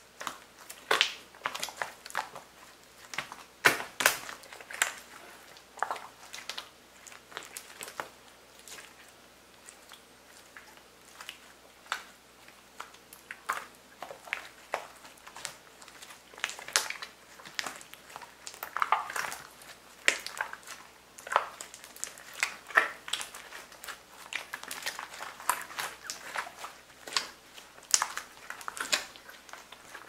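Slime being squeezed, stretched and kneaded by hand, giving irregular wet squelches with sharp little pops and clicks as trapped air bursts.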